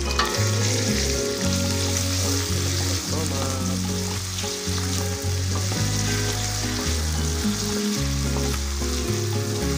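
Sliced chillies, shallots, garlic and tomato sizzling in hot oil in an aluminium wok, stirred with a spatula against the pan. A low background music line runs underneath.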